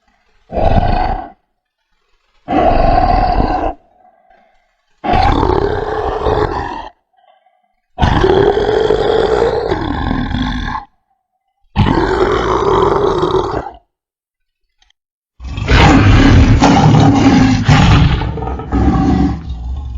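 Dinosaur roar sound effect: six separate deep roars with short silences between them, each lasting one to three seconds. From about three-quarters of the way in comes a longer, denser stretch of roaring and grunting.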